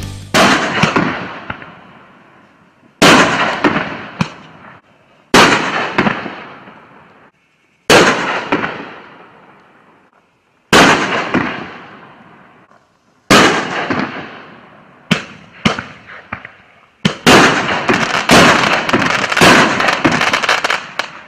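3D Pyro 'Basket Case' 500 g nine-shot firework cake firing. There is a loud bang every two to three seconds, each followed by a fading crackle. Near the end several shots come in quick succession.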